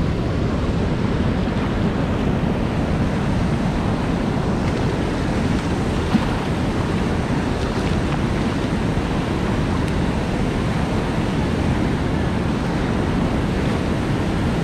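Steady rushing noise of wind on the microphone and choppy water around a kayak, with one brief knock about six seconds in.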